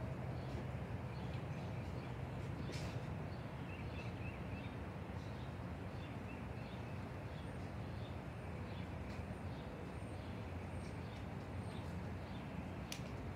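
Outdoor ambience: a steady low background rumble with faint, high bird chirps scattered through it. Two sharp clicks stand out, one about three seconds in and one near the end.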